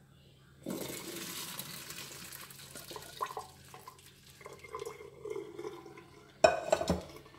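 Hot cooking water and boiled diced carrots poured from a pot through a stainless-steel mesh strainer into a sink: a sudden splashing rush that fades into gurgling and dribbling. A short, loud clatter near the end.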